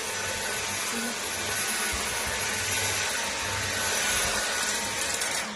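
Vacuum cleaner motor running steadily with a thin high whine, then cutting off near the end.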